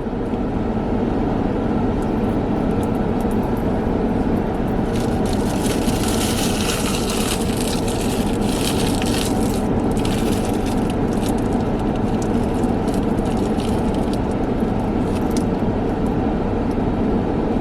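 Steady hum inside a parked car's cabin, with crackling, crunching sounds close to the microphone from about five to twelve seconds in as a big bite of food is eaten.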